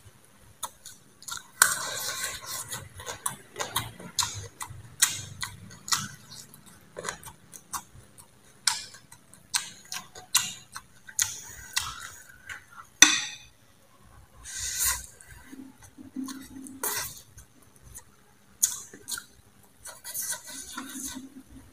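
Close-up eating sounds: irregular crisp crunches and chewing as green mango and food are bitten, with sharp clicks of chopsticks against a plate. One snap about halfway through is the loudest.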